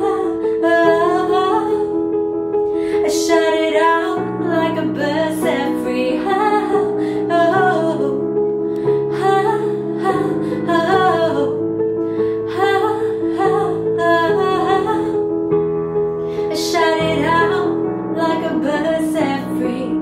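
A woman singing a slow, bending melody over held piano chords that change every second or two.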